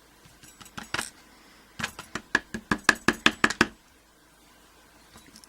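Small metal parts of a disassembled euro cylinder lock, its pin-tumbler pins and springs, clicking on a hard surface: a few scattered clicks, then a quick run of about a dozen light clicks, some six a second.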